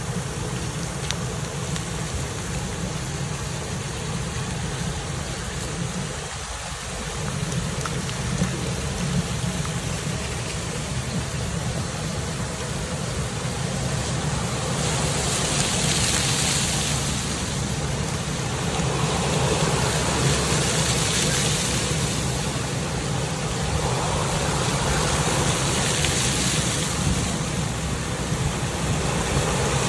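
Splash pad ground fountain jets spraying water onto wet pavement: a steady hiss that swells and fades several times in the second half, over a constant low rumble.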